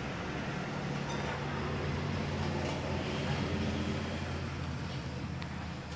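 Low, steady hum of a motor vehicle's engine running, which fades away near the end.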